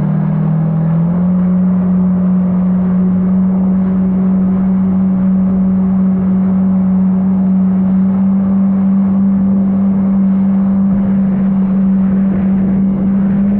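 Jet ski engine running under way with a steady drone, its pitch stepping up slightly about a second in, over the hiss of water spraying off the hull.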